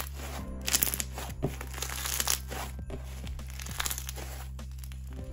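Hands squeezing and pressing a crunchy bingsu-bead slime, giving crackling, crunching pops in several bursts as the beads are crushed together.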